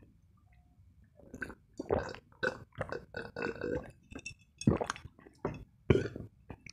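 Close-miked gulping and swallowing as a drink is taken from a glass jar: a run of quick gulps and mouth clicks, with light clinks of the glass, starting about a second in.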